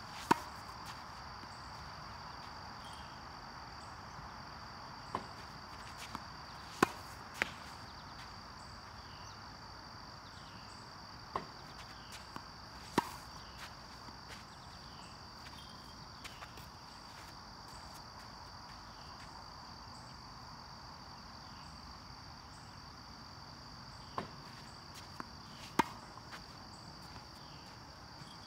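Tennis balls from a ball machine bouncing on a hard court and struck with a racket on backhand strokes: sharp pops every few seconds, often in pairs. A steady high chorus of crickets runs underneath.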